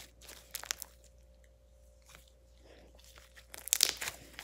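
Homemade glue slime being squeezed and stretched by hand, giving sticky crackling pops in two clusters: one near the start and one about three and a half seconds in.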